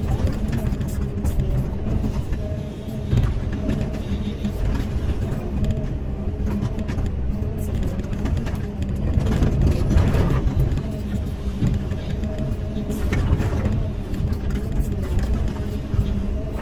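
Caterpillar 320E hydraulic excavator's diesel engine running steadily under digging load, heard from the operator's seat, while the bucket scrapes through dry, stony soil, with a few louder scrapes about ten and thirteen seconds in.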